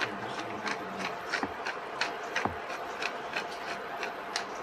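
Wooden pepper mill being twisted and grinding pepper, giving a steady run of ratcheting clicks about three or four a second.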